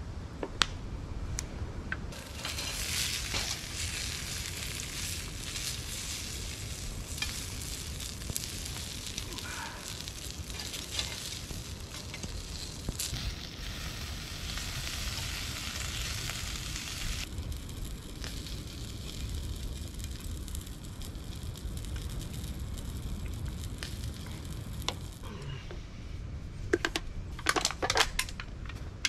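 Food sizzling as it fries in a pan over a wood fire, with scattered crackles from the fire. The sizzle comes in a couple of seconds in and is strongest through the first half, then softer. A few sharp clicks and knocks come near the end.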